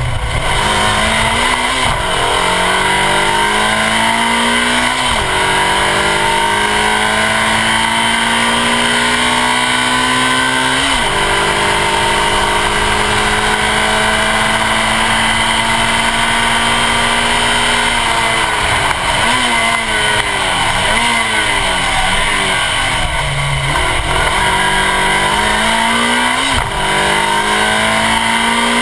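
Suzuki Swift Sport rally car's four-cylinder engine pulling hard under full throttle, heard at the front bumper. It climbs through the gears with upshifts about two, five and eleven seconds in, holds one long pull, then drops through the gears in a series of short rises and falls before accelerating and shifting up again near the end. A steady rush of wind and road noise runs underneath.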